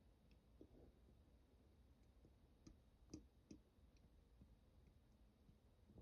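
Near silence: faint room tone with a few soft, scattered clicks, the clearest two a little past three seconds in.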